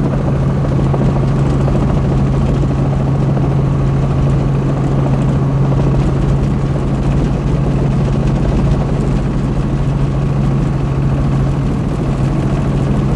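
Helicopter engine and rotor running steadily, heard from inside the cabin, with a strong, unbroken low hum under the noise.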